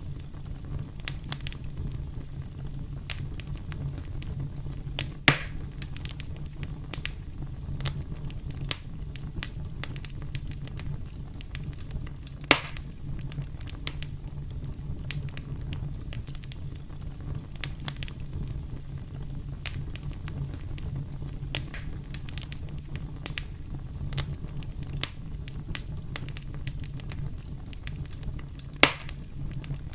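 Campfire crackling: frequent small snaps over a steady low rumble, with three sharper pops, about five seconds in, about twelve seconds in, and near the end.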